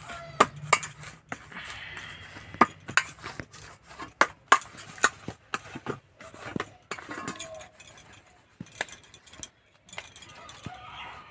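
Hands kneading maida dough in a stainless steel bowl: irregular knocks and sharp metallic clinks as the dough is pressed and turned against the bowl.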